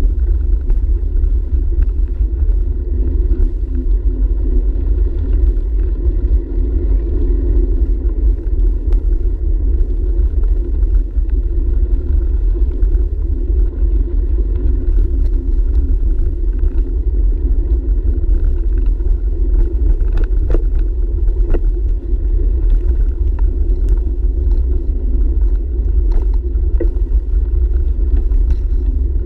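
Steady low rumble of wind buffeting and tyre and frame vibration picked up by a handlebar-mounted camera on a moving bicycle, with scattered faint clicks.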